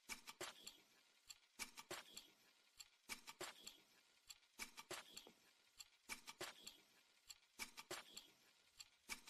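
Faint clicking percussion in a steady repeating pattern: a short cluster of sharp clicks about every second and a half, with near silence between.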